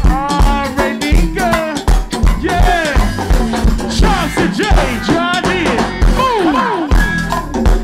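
Live band playing upbeat music: a melodic lead line gliding and bending up and down over a steady beat.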